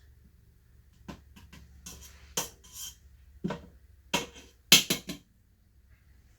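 A utensil clinking and knocking against the Pressure King Pro's inner pot while the butter melts: a scattering of sharp clatters, the loudest a quick run of three a little under five seconds in.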